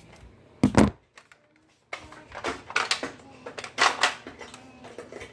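Sharp clicks and knocks: one loud knock just under a second in, a brief drop to near silence, then a run of irregular clicks and knocks.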